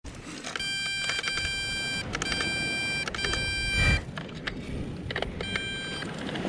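Repeated electronic beeps at one steady pitch from a hobby quadcopter drone and its handheld remote controller as they are readied for flight. There is one long beep, then two shorter ones, and after a pause another begins near the end, over a steady background hiss.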